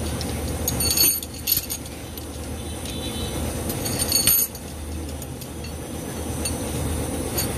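Light metallic clinks of steel pushrods being handled and set into an Isuzu 6BG1 cylinder head, a few times around the first and fourth seconds, over a steady low workshop hum.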